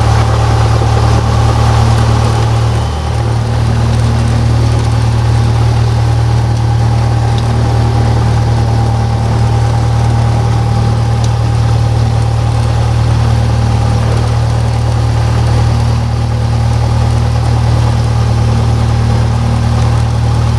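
Cessna 172 Skyhawk's piston engine and propeller running steadily at low power, a loud, even drone heard inside the cabin, dipping briefly about three seconds in.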